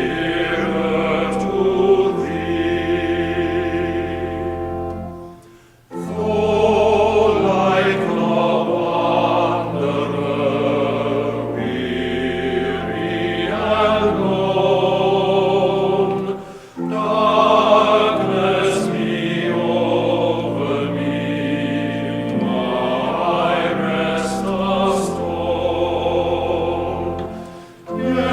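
Choral music: a choir singing in long phrases over held low accompaniment notes, with short breaks between phrases about six and sixteen seconds in.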